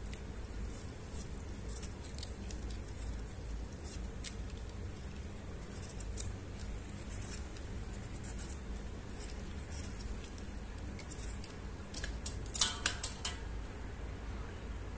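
Scattered light clicks and taps over a low steady hum, with a short burst of louder clinks near the end.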